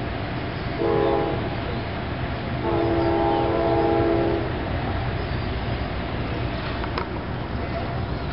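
Locomotive air horn sounding twice, a short blast and then a longer one of almost two seconds, each a chord of several notes. A steady low rumble runs underneath.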